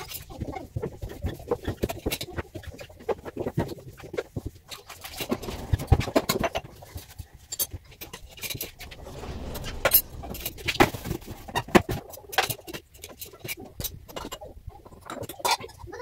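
Irregular clicks, knocks and clatter of white plastic refrigerator shelves and parts being handled and pulled out of an empty fridge, with some scraping.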